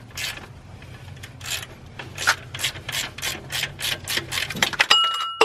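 A socket ratchet being worked in quick back-and-forth strokes, about three a second, to loosen a 13 mm bolt on the alternator bracket. Near the end there is one sharp metallic clink that rings briefly.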